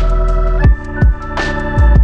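Electronic music: sustained organ-like chords over deep, pitch-dropping kick drums, with a cymbal crash about every second and a half.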